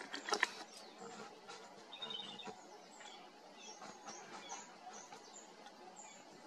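Faint wild birdsong: scattered short, high chirps, with a brief rapid trill about two seconds in. A few sharp clicks come near the start.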